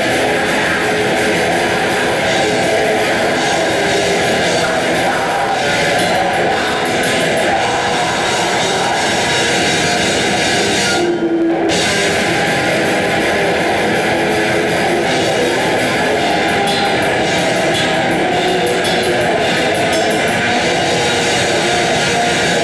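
Black metal band playing live: heavily distorted electric guitars and a drum kit in a dense, continuous wall of sound. The high end drops out for about half a second halfway through.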